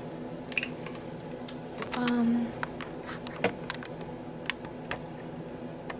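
Camera being handled and zoomed out: scattered light clicks and taps, with one louder knock about halfway through. A brief hum of the voice about two seconds in.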